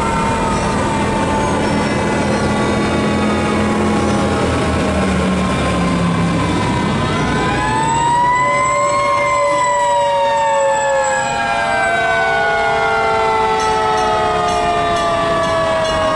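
Fire trucks rolling past with a heavy engine rumble, then about halfway through a fire siren winds up quickly and slowly winds back down, with a second siren rising over it a few seconds later.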